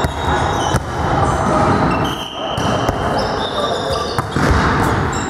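Volleyball being hit during play in an echoing sports hall, with sharp slaps of hands on the ball, short high squeaks from shoes on the gym floor, and players' voices.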